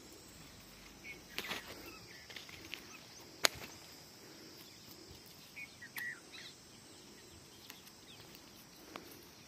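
Quiet outdoor ambience with a few scattered footsteps and scuffs, a sharp click about three and a half seconds in, and a few short high chirps.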